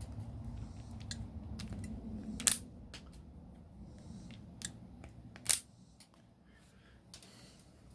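Hand-held self-adjusting wire strippers snapping shut on wire: a handful of sharp mechanical clicks, the two loudest about two and a half and five and a half seconds in.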